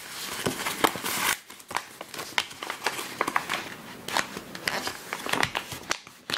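A sheet of origami paper being folded by hand: irregular crisp crinkles and rustles as the paper is creased and pressed flat along the folds.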